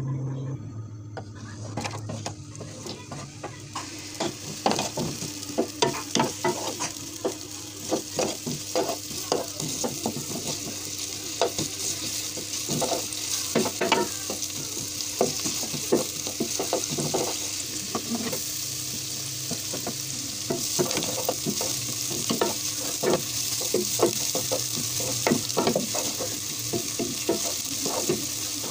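Sliced onions sizzling in hot oil in a square nonstick pan, stirred with a spatula that scrapes and taps against the pan bottom again and again. The sizzle builds over the first few seconds and grows stronger about two thirds of the way in.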